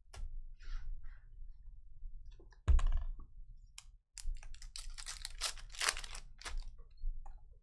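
A foil trading-card pack (Panini Recon basketball) being torn open, its wrapper crinkling and crackling in a dense burst from about four to seven seconds in. A single thump comes a little before, near three seconds.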